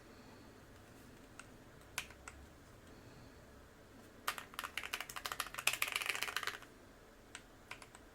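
Typing on a custom tenkeyless mechanical keyboard with TTC long-pole tactile switches and mixed PC and ABS double-shot Cherry-profile keycaps: a few single key strokes, then a quick run of keystrokes for about two seconds starting about halfway through, then a few more single strokes near the end.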